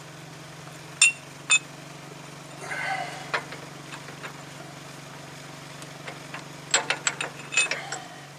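Steel ball-joint press adapters clinking: two sharp ringing metal knocks about a second in, then a quick cluster of metal clicks near the end as the adapter and C-frame press are set against the ball joint. A steady low hum runs underneath.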